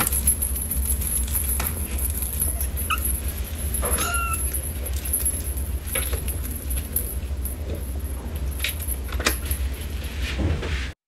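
A pet's two short, high calls, about three and four seconds in, over a steady low rumble with a few faint clicks.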